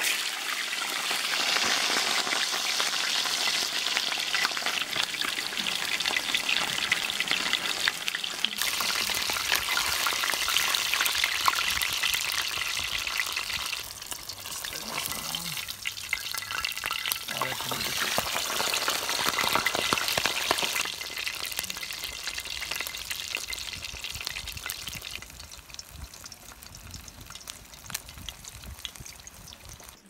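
Whole pomfret shallow-frying in hot oil in a pan over a campfire: a dense crackling sizzle. It dips briefly and surges again about halfway through as the fish goes into the oil, then dies down over the last several seconds.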